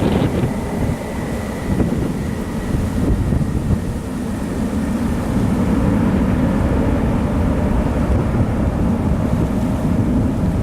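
Jet engine noise from a Boeing 787's Rolls-Royce Trent 1000 turbofans, a steady low rumble, with a faint high whine fading out in the first couple of seconds and some wind buffeting the microphone.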